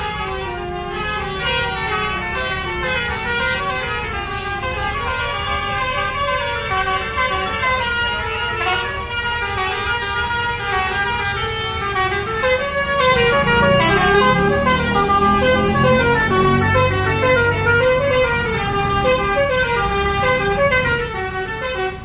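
Basuri telolet bus horn playing a melody of stepping notes without a break. It gets louder about halfway through, with a low engine rumble underneath for a few seconds.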